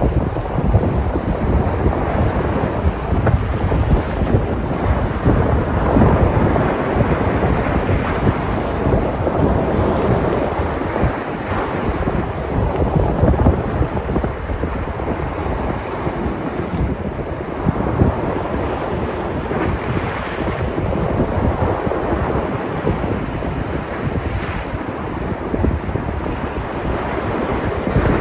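Sea surf: waves breaking and washing in, a steady rush that swells and eases every few seconds, with wind buffeting the microphone.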